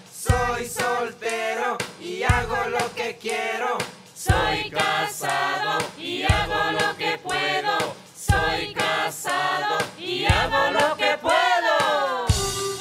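A mixed group of men and women singing Andean coplas together in short phrases, with a low beat about every two seconds. Near the end a voice slides upward and the band's instruments, violin among them, come in.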